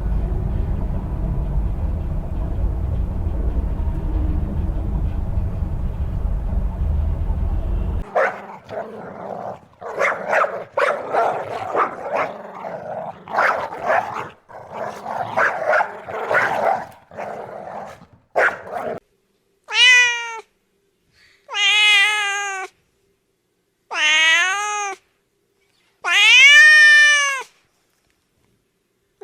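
A cat meowing four times, each meow about a second long, rising then falling in pitch, the last the longest. Before that comes a jumble of short overlapping calls and clicks, and at the start a steady low rumbling noise that cuts off about eight seconds in.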